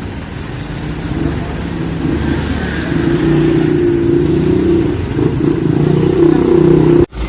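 A street-lighting maintenance vehicle's engine running at raised revs. It gets louder over the first few seconds, holds steady, then cuts off suddenly near the end.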